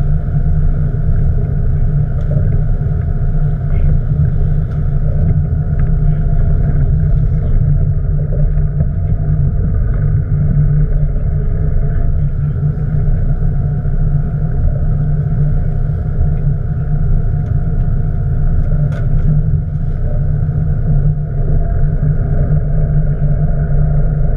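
Boat engine running steadily, a loud, even low rumble with no change in pace.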